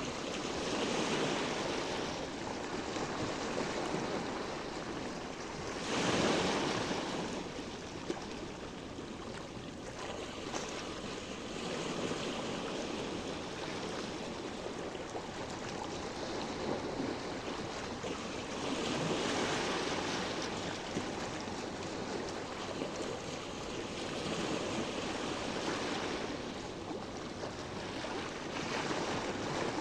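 Sea waves washing onto the shore: a continuous wash of surf that swells as each wave breaks, loudest about six seconds in.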